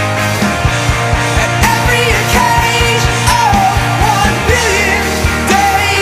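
Rock music with a fast, steady drum beat and a wavering lead melody over a dense band.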